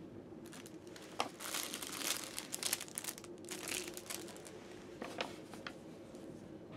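Plastic wrapping and a plastic bag crinkling as the items of a sleeper-train amenity kit are handled, in a run of bursts over the first few seconds, then a couple of light clicks about five seconds in.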